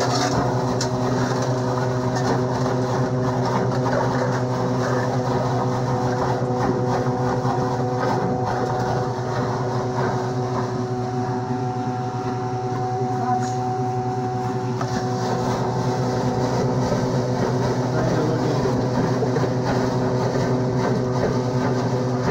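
Engine of a drain-cleaning machine running steadily at one constant speed, an even drone that does not change.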